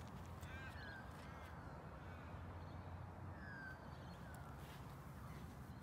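Faint bird calls over a quiet outdoor background: a few short curved chirps in the first second and a half, then two downward-sliding calls about three and a half and four seconds in, over a steady low rumble.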